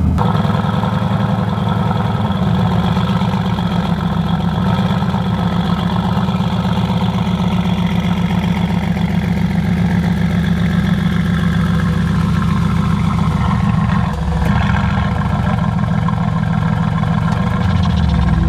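Mercedes-AMG GT S's twin-turbo 4.0-litre V8 idling steadily, with a brief drop in level about fourteen seconds in.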